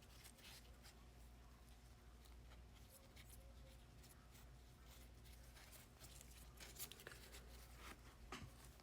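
Near silence with faint rustles and soft clicks of trading cards being handled and slid through the hand, over a low steady room hum.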